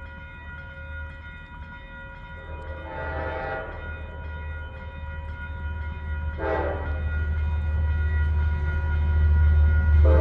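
Approaching diesel passenger train, its low rumble growing louder, with two short horn blasts and then a longer, louder blast beginning near the end.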